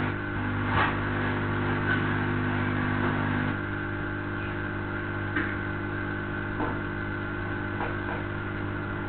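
Steady low hum with faint background noise and a few faint knocks; part of the hum drops away about three and a half seconds in.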